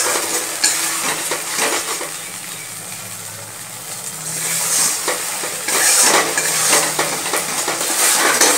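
Metal spatula scraping round a metal kadai, stirring a thick ground mustard, poppy-seed and green-chilli paste that sizzles in oil with fried onions. The stirring eases off for a second or two in the middle, then picks up again.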